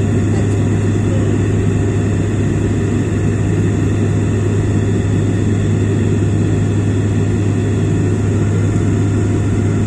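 Cabin noise inside a Bombardier Dash 8 Q400 turboprop in flight on approach: its Pratt & Whitney PW150A engines and propellers give a steady, loud low drone with a constant hum, over an even rumble of air.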